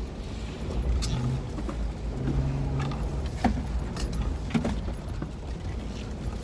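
Jeep driving off-road, heard from inside the cabin: a steady low engine and road rumble, with knocks and rattles as it bumps over rough ground. The clearest knocks come between about three and a half and five seconds in.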